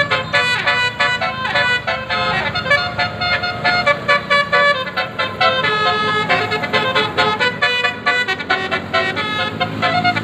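Bus telolet basuri horn playing a fast melody of short, quickly changing notes, over a steady low hum.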